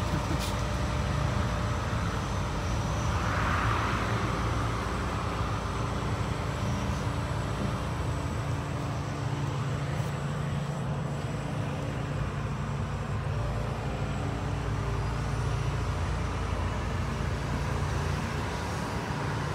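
Tracked demolition excavator's diesel engine running steadily, a low constant hum.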